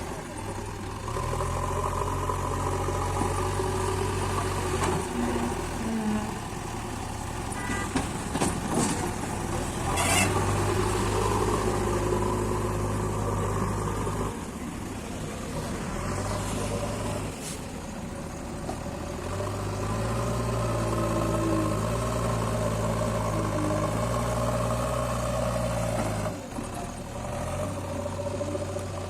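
Diesel engine of a JCB backhoe loader running under load, its speed stepping up and dropping back several times as it works. A short spell of clattering knocks comes about a third of the way in.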